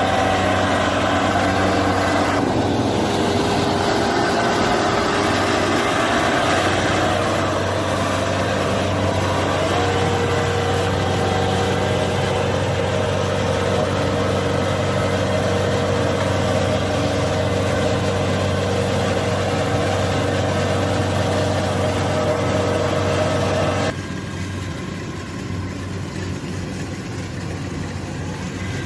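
Kubota combine harvester's diesel engine running steadily. Near the end the sound drops suddenly quieter.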